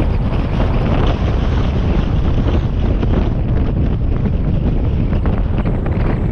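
Heavy wind buffeting on a bonnet-mounted camera's microphone as a Mazda MX-5 NB drives at road speed, with steady low road and engine noise underneath.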